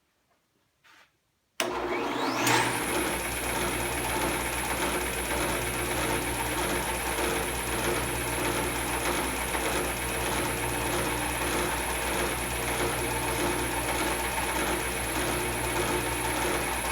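Table saw motor switched on about a second and a half in, its whine rising for about a second as it spins up a homemade 12-inch MDF sanding disc on the arbor, then running steadily at full speed on a test run to see whether the disc runs true.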